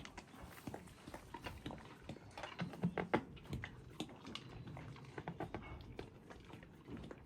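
A horse mouthing and licking at mint candies, making irregular wet clicks and smacks that are loudest in a cluster about three seconds in.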